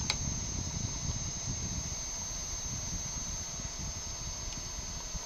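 A steady high-pitched whine, with a sharp click at the very start and low, irregular bumps as the engraved metal plate is handled.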